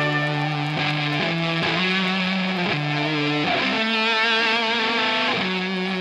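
Music led by electric guitar: sustained chords that change every half second to a second.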